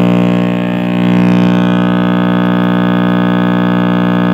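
RCA Victor X551 tube radio's speaker putting out a loud, steady mains hum with many overtones, dipping slightly about half a second in, then steady again from about a second in. The owner suspects a faulty filter capacitor.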